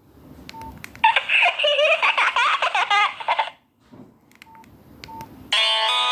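A Nokia 6131 mobile phone's speaker playing a short warbling electronic alert tone with wavering, up-and-down pitches for about two and a half seconds. Single short beeps come just before it and twice after it, and a new musical ringtone starts near the end.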